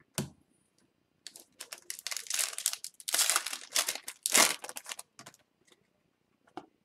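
Foil wrapper of an O-Pee-Chee Platinum hockey card pack being torn open and crinkled, a dense crackling rustle lasting about four seconds, followed by a few light ticks as the cards are handled.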